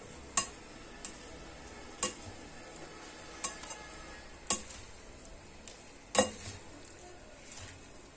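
Dressing being poured over and stirred into a chopped salad in a glass bowl: a faint steady hiss with several sharp, irregularly spaced clicks against the glass.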